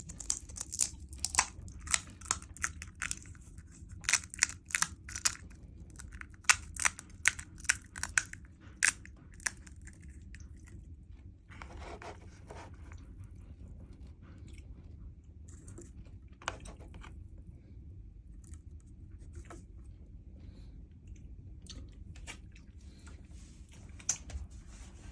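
Mouth chewing and crunching pani puri, the crisp fried puri shells cracking between the teeth. A quick run of sharp crunches fills the first nine or ten seconds, then only a few scattered softer sounds follow.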